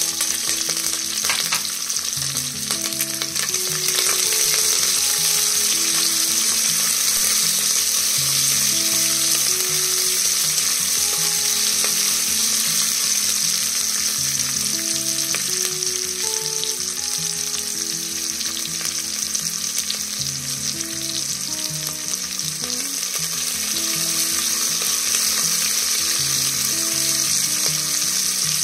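Sliced onions and curry leaves sizzling steadily in hot oil in a pressure cooker, on top of a tempering of mustard, cumin and fenugreek seeds. Soft background music with a slow melody plays underneath.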